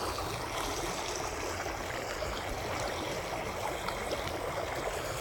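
A river rushing steadily over rocks.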